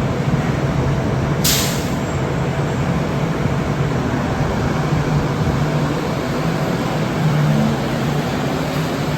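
Bombardier Innovia APM 100 rubber-tyred light rail train running steadily as it departs, a loud drone with a low hum. A short, sharp hiss of air cuts in about one and a half seconds in.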